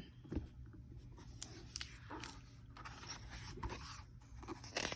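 Faint rustling and light scraping of paper, with a few small clicks, as the pages of a picture book are handled.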